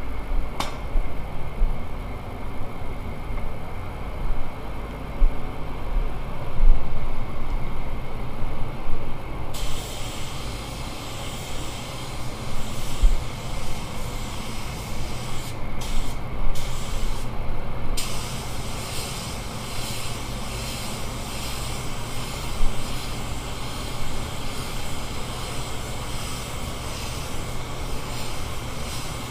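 Compressed-air spray gun hissing as paint is sprayed, switching on partway through and cutting off briefly a few times, over a steady low hum.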